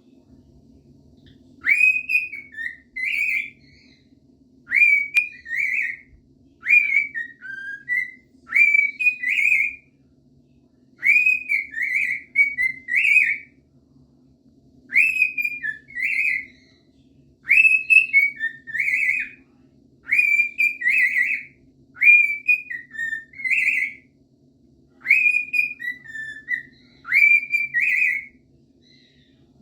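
Cockatiel whistling the same short tune over and over: a quick upward-swooping note followed by a warbling run, repeated about every two seconds. A steady low hum runs underneath.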